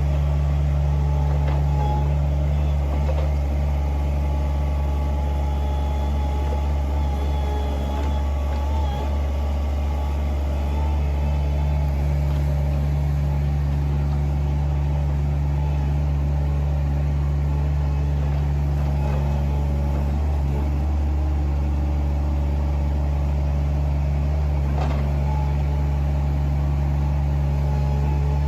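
Farm machinery's engine running steadily at an even speed, a constant low hum with faint higher tones above it.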